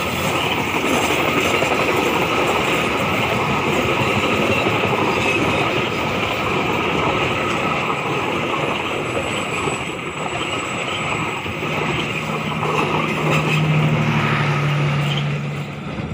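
Passenger train carriages rolling past on a curve, a steady rumble and rattle of wheels on rails. A low steady hum joins about twelve seconds in, and the sound cuts off suddenly at the very end.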